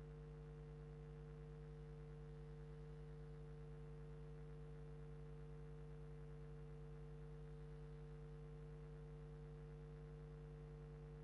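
Near silence with a faint, steady low electrical hum made of several fixed tones, unchanging throughout.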